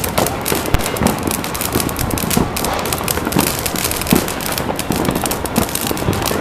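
New Year's Eve firecrackers and fireworks going off all around in a dense, continuous crackle, with many rapid pops overlapping and no pause.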